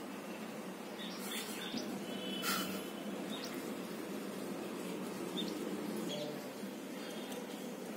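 Steady low background noise with a few faint, short high chirps and light ticks scattered through it.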